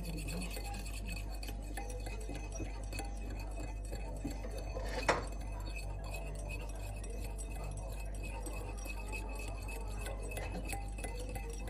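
A small metal fork stirring liquid jelly in a glass bowl, tapping and scraping against the glass, with one sharp clink about five seconds in.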